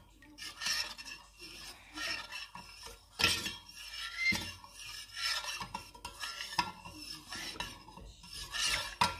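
A spoon stirring a turmeric, honey and lemon mixture vigorously in its container, scraping irregularly with a couple of sharper clinks, about three seconds in and near the end.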